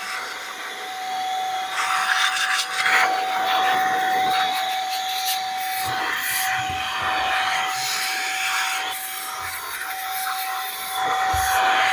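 Cordless electric air duster running, its small motor giving a steady high whine over a rushing hiss of blown air as it blows dust out of a desktop computer case.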